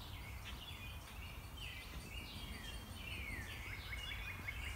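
Wild birds singing: several falling whistled phrases and trills, then near the end a quick run of short repeated notes, over a faint low rumble.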